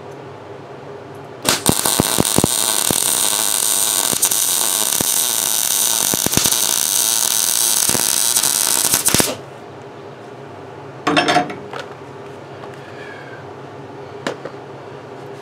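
MIG welder arc crackling and sputtering for about eight seconds as a steel tab is welded on, starting about a second and a half in and cutting off sharply. A short clatter follows a couple of seconds later.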